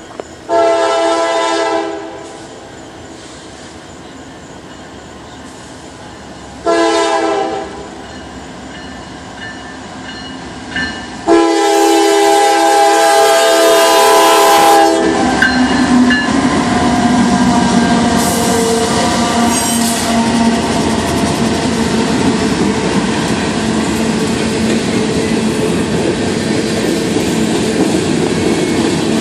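A Norfolk Southern diesel locomotive's air horn sounds three blasts as the train approaches: a blast of about a second and a half, a shorter one about five seconds later, then a long blast of nearly four seconds. From about 15 seconds in, the locomotives and loaded grain hopper cars roll past close by, with a steady loud rumble of engines and steel wheels on the rails.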